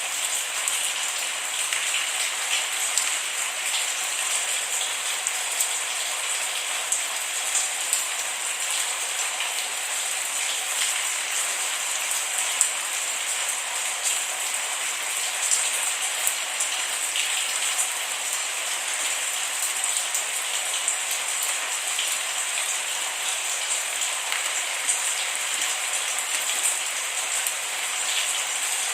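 Steady rain falling with no thunder: an even hiss with many small drop ticks scattered through it.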